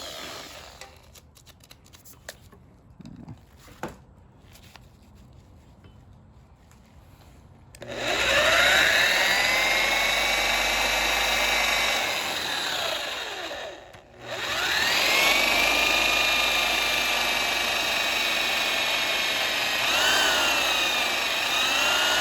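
Handheld electric drill boring into a rounded-off engine bolt. A few faint clicks come first. About eight seconds in, the drill spins up with a rising whine and runs under load. It stops briefly around fourteen seconds, then spins up again and keeps drilling with small dips in speed.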